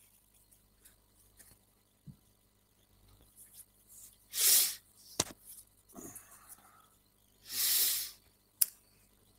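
Two loud, breathy exhales blown into a headset microphone, each about half a second long and about three seconds apart, as a man smokes a cigarette. There are sharp single clicks just after each one.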